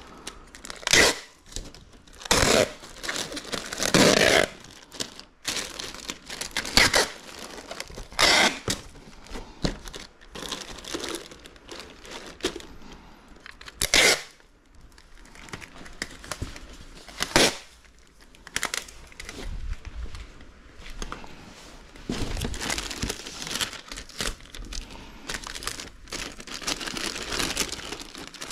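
Bubble wrap and plastic cushioning material crinkling and rustling as it is handled and packed around the model in a shipping box, with sharp, irregular tearing sounds.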